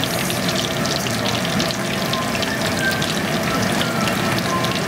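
Panko-breaded chicken cutlets shallow-frying in hot oil in a pan: a steady, dense crackling sizzle.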